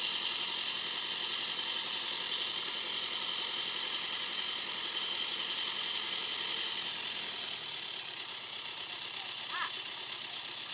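Steady noise of heavy machinery running, with a high hiss that shifts in tone about seven seconds in and a couple of brief high squeaks near the end.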